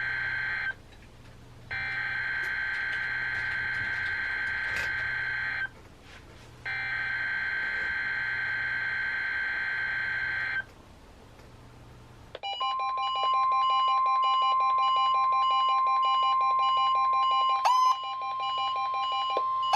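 NOAA Weather Radio emergency alert: the end of one burst of warbling SAME digital header tones, then two more bursts of about four seconds each with a second of silence between. About twelve seconds in, the steady, louder 1050 Hz warning alarm tone starts, with a weather radio receiver's own pulsing alert beeps over it. The sequence sets off the Required Weekly Test.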